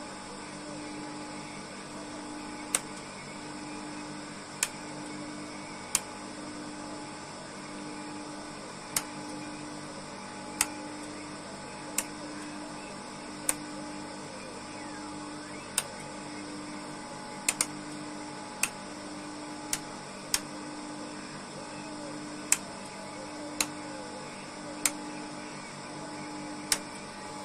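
Sharp single clicks every second or two as a rotary selector switch on the R-140 radio's exciter panel is stepped through its positions by hand. Under them runs a steady equipment hum, with a low tone pulsing on and off about every second and a half.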